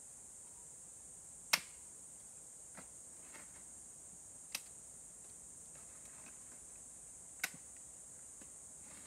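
Three sharp snaps about three seconds apart, with a few fainter ticks between, from small dry sticks being handled and broken by hand, over a steady high-pitched insect drone.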